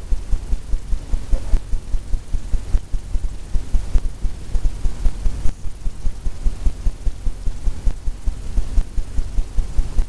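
A brush dabbed and pushed against a stretched canvas in quick strokes, giving rapid low thumps, about four a second.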